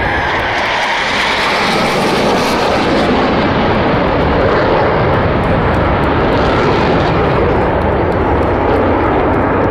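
Jet noise from the Blue Angels' F/A-18 Super Hornet formation passing low overhead, loud and steady. It builds over the first second, and a sharp hiss in the first few seconds gives way to a deeper rumble.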